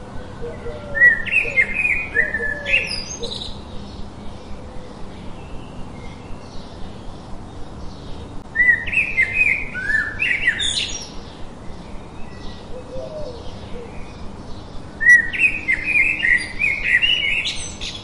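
Small songbird singing: three similar phrases of quick, high chirps and trills, about six to seven seconds apart, over a background of softer chirping.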